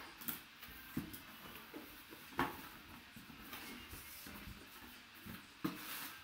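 Cardboard shoe box being opened by hand: a box cutter slits the seal sticker, then a few sharp knocks and clicks as the lid is handled, the loudest about two and a half seconds in. Tissue paper rustles near the end.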